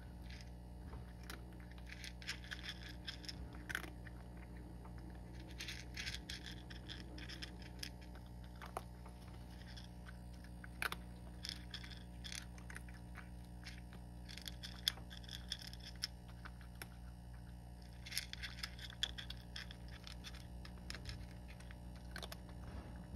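A cat crunching dry kibble: irregular sharp crunches, coming in bunches of several bites with short pauses between.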